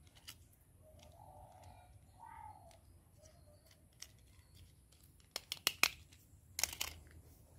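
A small plastic toy being handled: light plastic clicks and taps, a quick run of about four sharp clicks about five and a half seconds in, then a short burst of crinkling near the end.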